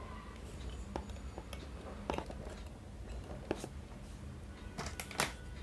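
Faint clicks and taps of small electronic parts and wires being handled on a workbench, the sharpest about two, three and a half and five seconds in, over a low steady hum.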